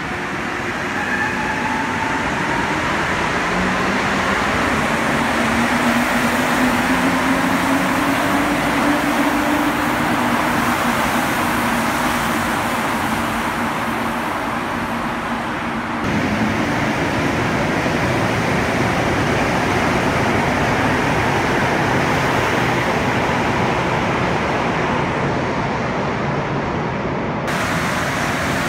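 Montreal Metro rubber-tyred trains. For the first half, a train accelerates away with a rising whine from its traction motors over a rumble. After an abrupt cut, a white-and-blue MR-73 train runs past with a loud, steady rumble of rubber tyres and running gear.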